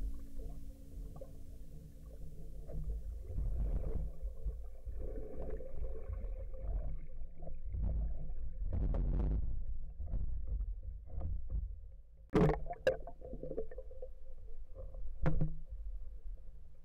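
Underwater camera sound of a diver moving through the sea: a steady low water rumble with muffled knocks and swishing, and two sharper, louder splashy bursts near the end as the camera comes up to the surface.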